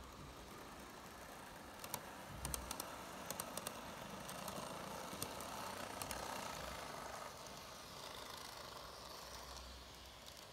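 N-gauge model trains (TOMIX 185 series and 251 series) running on model track: a faint rolling rattle that swells as a train passes close, then drops off about seven seconds in. A quick run of sharp clicks comes about two to four seconds in, with two more a little later.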